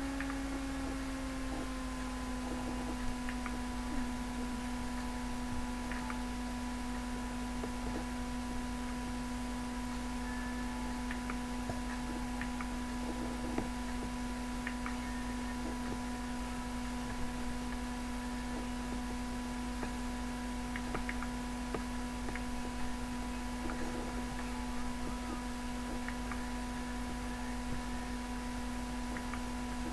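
A steady machine hum at one pitch that holds level throughout, with a few faint clicks over it.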